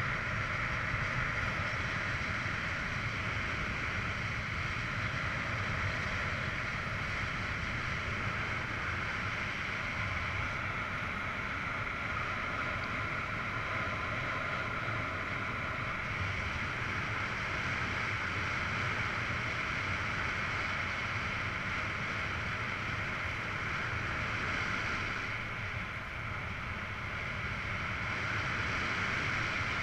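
Steady rush of airflow buffeting the camera microphone in paraglider flight, with a low rumble underneath; it eases briefly near the end.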